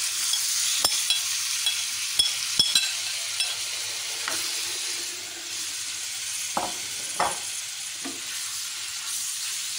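Marinated boneless chicken pieces sizzling as they go into a hot oiled frying pan, the hiss strongest at the start. A metal spoon clinks sharply a few times in the first three seconds and scrapes twice later as it pushes the chicken out of the bowl and around the pan.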